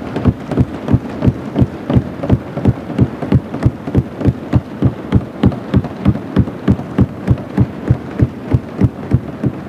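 Assembly members thumping their desks in unison as applause: a steady beat of about three heavy thuds a second over a general clatter.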